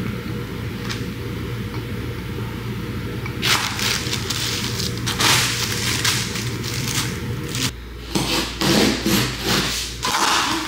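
Plastic packaging crinkling and rustling as it is handled, in repeated bursts from about three and a half seconds in, over a steady low hum.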